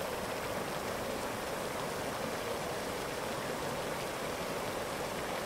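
Boiling hot spring bubbling, a steady watery hiss.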